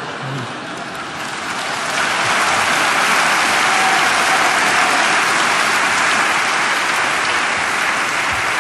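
Studio audience applauding, a dense steady clapping that swells about two seconds in and holds.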